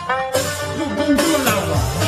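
Background music: a tune with a held melody over low notes that slide up and down.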